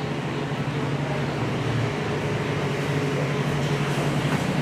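Steady low mechanical hum over a constant background noise, getting a little louder near the end.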